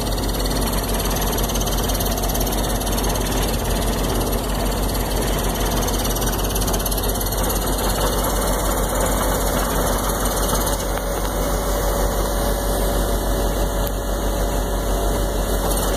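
Ditch Witch JT60 horizontal directional drill rig running during a hard-rock bore with a compressed-air down-hole hammer: a loud, unbroken mechanical din of diesel engine and machinery with a low steady drone underneath.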